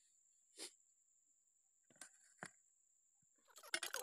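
Mostly near silence with a few faint isolated clicks, then near the end a quick clatter of clicks and scrapes: a steel serving spoon knocking and scraping against steel plates.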